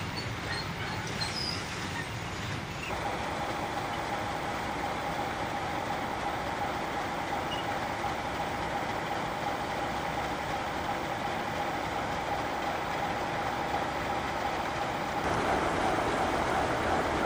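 Class 37 diesel locomotive with an English Electric engine running slowly past, hauling tank wagons: a steady engine drone with a constant whine that comes in about three seconds in. The noise gets louder near the end as the wagons roll by.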